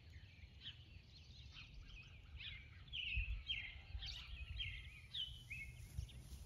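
Songbirds chirping and singing in a rapid string of short, whistled notes, busiest in the middle, over a faint low rumble.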